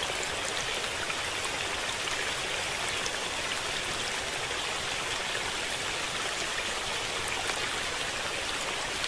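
Steady, even rushing-water noise with no break, as heard over fast-moving floodwater.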